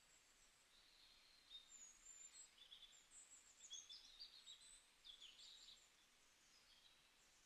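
Faint bird chirping: quick, high little calls that come thickest in the middle few seconds, over a low background hiss.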